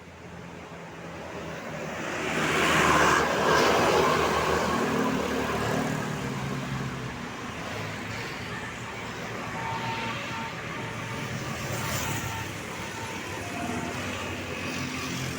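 Road traffic: a vehicle passes close by, its engine and tyre noise swelling to a peak about three seconds in and fading away, followed by the steady sound of engines running on the road.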